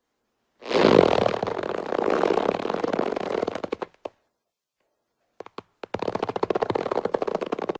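Cartoon sound effect: a rapid sputtering, rattling sound lasting about three seconds, a few short clicks, then a second spell of the same rapid sputter.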